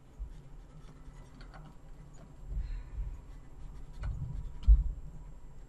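Computer mouse handling while drawing: soft clicks and low thumps of the mouse and hand against the desk, with a sharper thump near the end.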